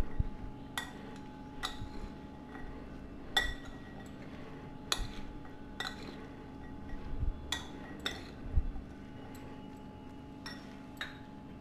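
Metal spoon clinking against a glass mixing bowl while stirring a chunky boiled black chickpea chaat: about ten sharp, irregular clinks a second or so apart, over a faint steady hum.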